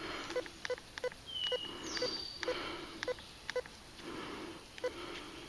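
White's MX Sport metal detector giving a string of short electronic button beeps, about eight or nine roughly a third of a second apart, as its mode is switched to relic mode. Two brief higher whistled tones come in between, about a second in and about two seconds in.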